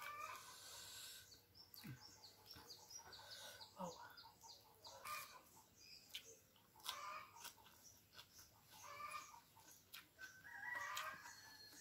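Chickens clucking and calling faintly, several separate calls a second or two apart, with a longer rooster crow near the end.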